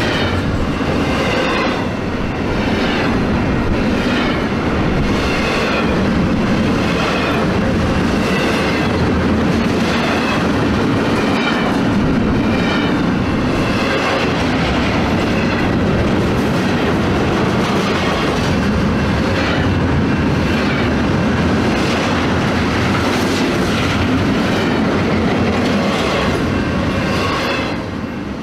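Train rolling along the rails, with a steady clickety-clack of the wheels over the rail joints and some wheel squeal, fading out near the end.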